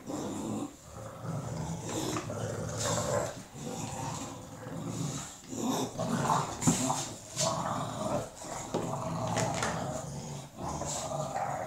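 Two bulldogs play-fighting, growling in uneven bursts with short pauses, with scuffling and mouthing noises.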